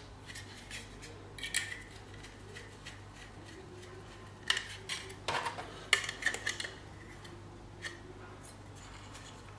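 Small metal clicks and clinks of a screwdriver and screws as the side screws are driven into an SSD, with a quick cluster of sharp clicks in the middle.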